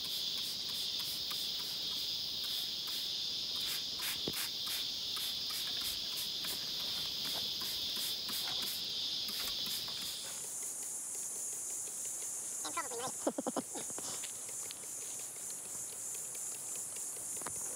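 Steady, high-pitched drone of an insect chorus. About ten seconds in it jumps to a higher pitch. A brief burst of quick chirps comes a few seconds later.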